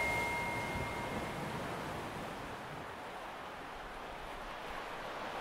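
Soft, steady rushing noise of an ambience sound effect, easing slightly, with a held high tone dying away in the first second.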